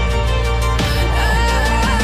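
Background music: a full soundtrack arrangement over a steady bass, with a melody line coming in about a second in.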